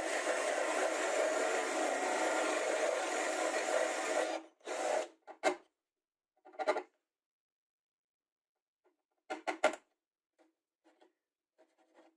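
Drill running steadily as its Forstner bit bores into plywood, stopping about four seconds in. Then short scraping strokes of a small chisel paring wood in the freshly bored hole, loudest in a quick cluster a little past halfway and faint near the end.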